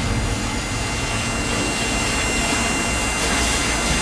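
Machinery running steadily, an even noise with a faint, unchanging high whine.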